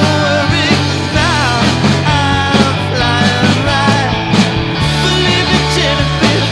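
A rock-and-roll band playing live, with drum kit and guitar keeping a steady beat and a wavering melodic line on top.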